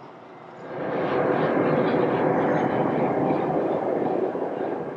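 Jet airliner engine noise, a steady rushing rumble with a faint high whine. It swells sharply under a second in, holds, and eases off near the end.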